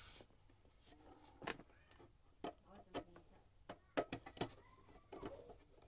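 Scattered clicks and knocks of hard plastic and metal parts being handled and fitted together while an electric hot water dispenser is reassembled, with two sharper knocks, one about a second and a half in and one about four seconds in.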